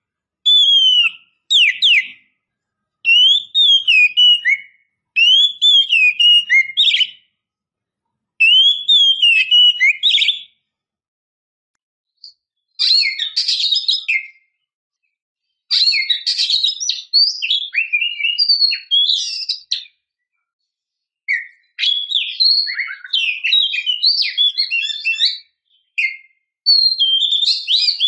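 Female oriental magpie-robin (kacer) singing in breeding condition, calling for a male. It gives clear, sliding whistled phrases about a second long, separated by short pauses. In the second half the phrases grow longer and denser, into jumbled runs of chirps and whistles.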